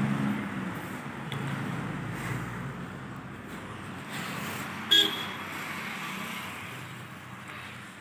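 Steady rumble of road traffic, with one short, sharp horn toot about five seconds in.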